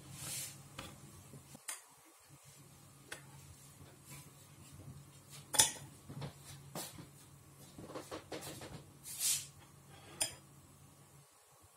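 Small clinks, taps and scrapes of hands working with bowls of filling: a plastic bowl of cinnamon sugar and a glass bowl of grated apple, as cinnamon sugar is sprinkled onto dough. Scattered single clicks and short scraping rustles, the sharpest click about halfway through, over a faint steady low hum.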